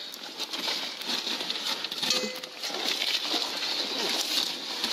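Fiberglass insulation batts rustling and scraping as they are shoved into place under a floor, handled right against the microphone: a dense, steady crackle of small clicks.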